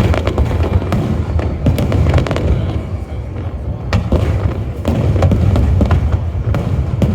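Fireworks display: a dense, rapid run of bursts and cracks over a continuous low rumble.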